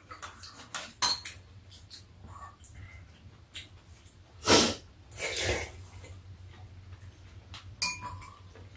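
Metal spoons clinking and scraping against ceramic bowls during a meal, in scattered sharp clicks, with two louder noisy sounds from the eaters around the middle. A steady low hum runs underneath.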